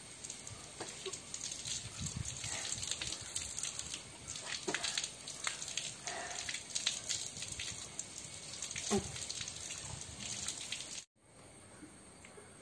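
Water running from an outdoor garden tap and splashing as a boy rinses at it, stopping abruptly about eleven seconds in.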